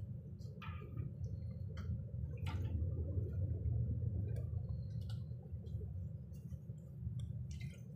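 Running noise inside a moving Railjet passenger coach: a steady low rumble from the train at speed, swelling slightly about halfway through, with scattered faint clicks.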